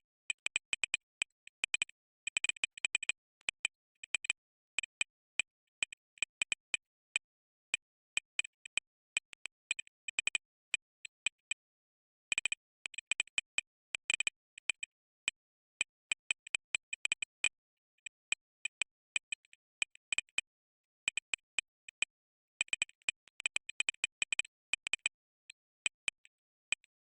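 Computer keyboard keys clicking in quick, irregular runs of keystrokes, broken by short pauses.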